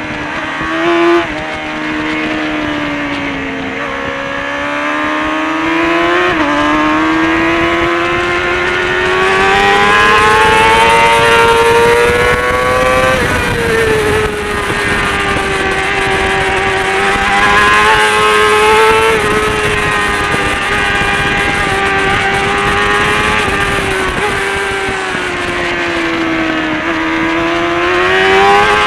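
Kawasaki ZXR400's 400cc inline-four engine running at racing revs under the rider, its pitch climbing and falling through gear changes and corners, with a sharp drop and climb from an upshift about six seconds in. Wind rushes past underneath.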